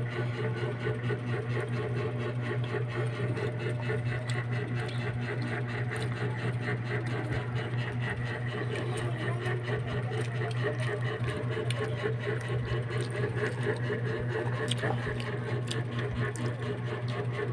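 A steady low hum, with many small clicks and rustles over it.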